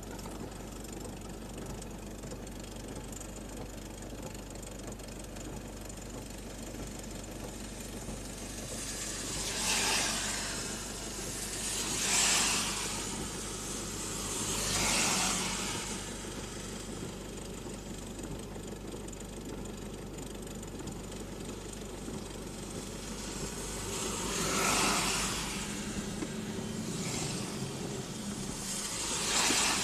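Inside a car creeping through traffic in heavy rain: a steady low drone of the engine and rain, with six swelling swishes of hiss, each about a second long, in two groups of three.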